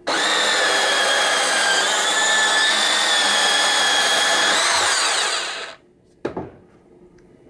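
Makita 18 V cordless handheld bandsaw cutting through steel square tubing: the motor and blade run with a steady whine under load, then the pitch rises as the blade breaks through the tube and the saw stops. A short knock follows about a second later.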